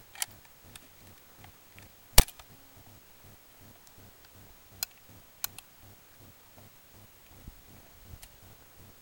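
A single rifle shot from a .303 bolt-action rifle about two seconds in, followed later by a few lighter clicks.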